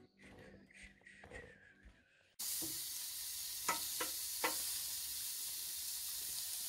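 T-bone steaks sizzling on a gas barbecue grill: a steady sizzle that starts suddenly about two seconds in. Metal tongs click against the grill a few times.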